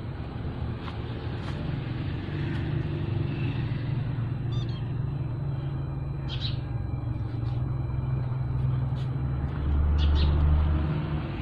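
Low, steady rumble of a motor vehicle running nearby, swelling a little louder about ten seconds in, with a few short bird chirps over it.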